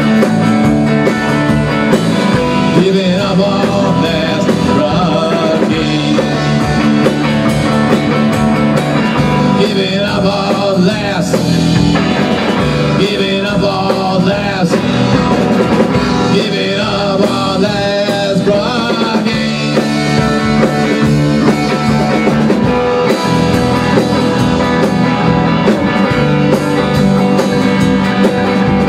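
Rock band playing live: drum kit, electric guitar and bass guitar together in an instrumental passage with no singing.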